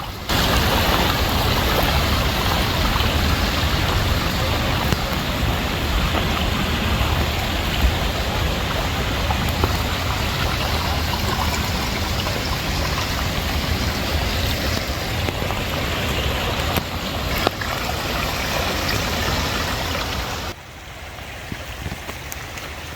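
Steady rush of the Sheep River's flowing water, loud and even. About twenty seconds in it drops suddenly to a much quieter rush.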